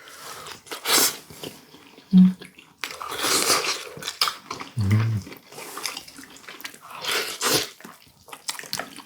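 Eating sounds from boiled duck soup: wet slurping and chewing in several bursts, with two brief low hums.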